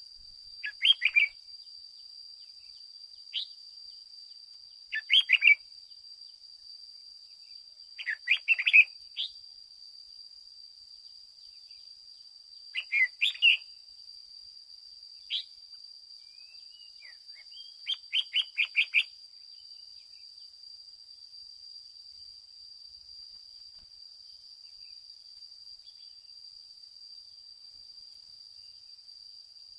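Red-whiskered bulbul calling in five short, quick bursts of chirpy phrases, spaced a few seconds apart and stopping about two-thirds of the way through. A thin, steady high-pitched tone sounds underneath.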